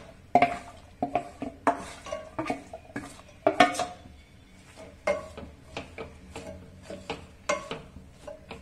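Wooden spoon scraping and knocking against a steel basin as sliced potato, carrot and beetroot sticks are tipped out into a pot: a run of irregular knocks and clatters, the louder ones with a short metallic ring.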